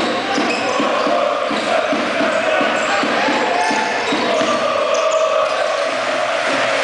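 Basketball supporters chanting together in a sports hall, with steady low thuds beating about three times a second under the voices.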